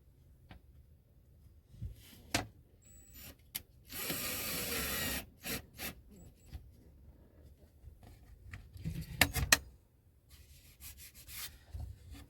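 Hand work with small hardware against wood: scattered clicks and knocks, with a scraping rub lasting about a second around four seconds in and a quick cluster of clicks near the end.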